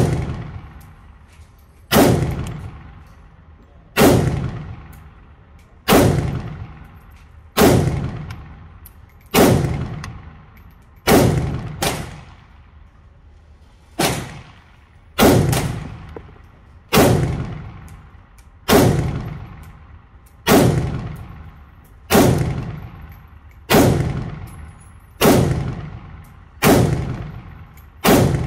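Zastava ZPAP92 AK-pattern pistol with a four-piece muzzle brake firing slow, deliberate single shots, about one every one and a half to two seconds. Each report echoes off the walls of the indoor range.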